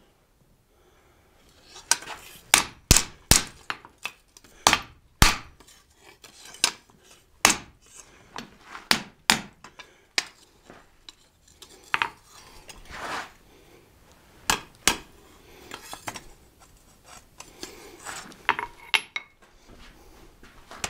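Blacksmith's hand hammer striking a hot leaf-spring steel blade on an anvil: a run of light, irregularly spaced blows that straighten the forged blade. The blows come fewer and softer in the last few seconds.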